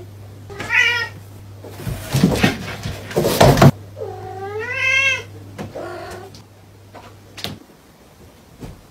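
A deaf white cat meowing loudly: a short meow about a second in, a long drawn-out meow around the middle and a weaker one just after. Between them come about two seconds of loud scuffling and knocks.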